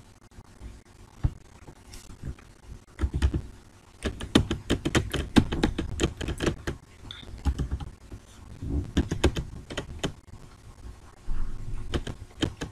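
Computer keyboard being typed on in several short bursts of rapid keystrokes, as a network address is entered.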